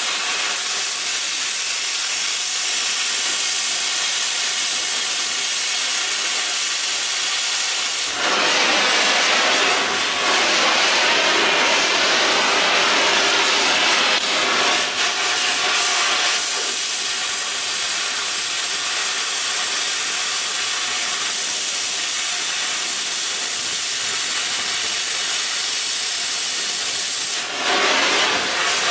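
Oxy-fuel cutting torch hissing steadily as it cuts a circle out of steel plate. The hiss grows louder and sharper for several seconds about a third of the way in, and again near the end.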